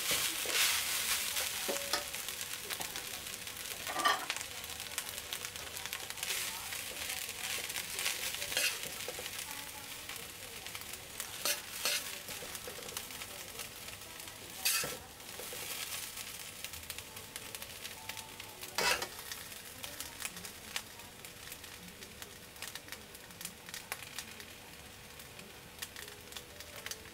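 Glutinous rice and Chinese sausage sizzling in a wok as a metal spatula stirs and scrapes it, with a few sharp knocks of utensils against the wok. The sizzle fades gradually toward the end.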